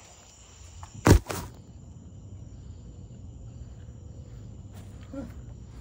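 Faint outdoor background noise with one sharp knock a little over a second in.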